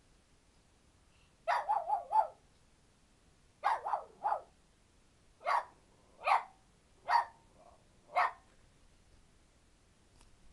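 Small dog barking: a quick run of four high, sharp barks about a second and a half in, three more around four seconds, then four single barks about a second apart before it stops.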